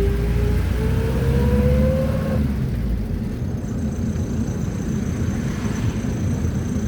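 Mercedes-Benz T1 minibus heard from inside while under way: a rising whine as it accelerates, breaking off about two and a half seconds in, then a steady engine and road rumble.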